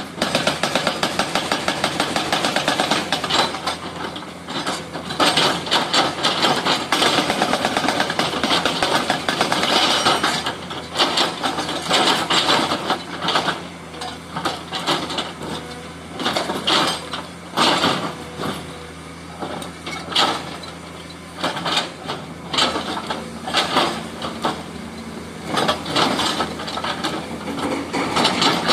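Komatsu excavator's hydraulic breaker hammering in rapid runs of blows lasting several seconds, with short pauses and scattered clanks between them, over the excavator's engine running steadily.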